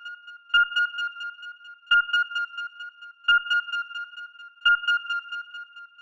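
High-pitched electronic beeping tone that never quite stops, surging to a sharp, loud beep about every second and a half, four times, and pulsing and easing off between surges.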